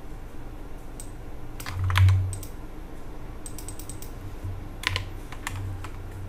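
Computer keyboard typing: scattered key clicks in two short clusters while a line of text is selected and deleted, with a low thump about two seconds in.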